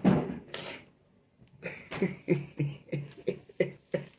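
A woman laughing in short, rhythmic bursts, about three a second, after a breathy exhale.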